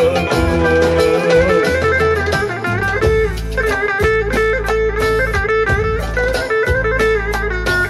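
Live Turkish folk band playing an instrumental interlude between sung verses: a quick, busy melody over a steady darbuka beat and keyboard bass.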